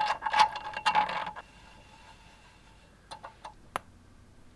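Screwdriver turning a screw into a plywood bracket on a metal desk leg, a run of rasping, squeaky turns that stops about a second and a half in. A few light clicks follow about three seconds in.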